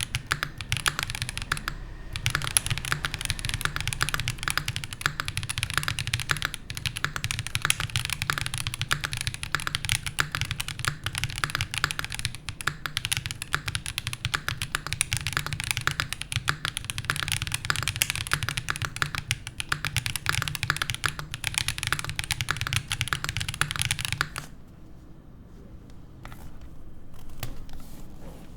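Continuous fast typing on a QK60 gasket-mount mechanical keyboard with stock Viola Tricolor L switches in an aluminium plate and GMK keycaps: a dense run of keystrokes. It stops about 24 seconds in, and only a few isolated key presses follow.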